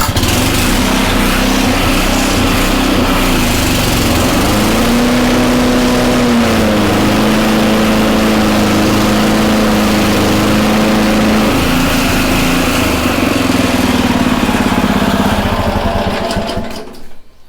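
Honda HRC216 commercial lawn mower engine starting on a pull and running steadily. Its note drops lower for several seconds in the middle and recovers, then the engine winds down and stops near the end.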